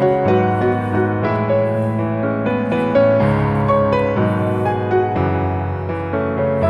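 Background music: a gentle piano melody over a steady bass line.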